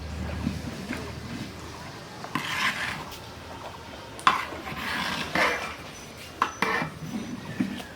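Metal utensils scraping and clanking against a cooking pot, with several scrapes and a few sharp knocks.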